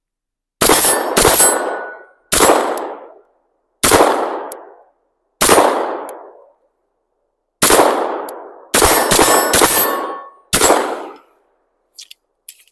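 CZ P-10 9mm pistol firing about ten shots at an uneven pace, each crack trailing off over about a second.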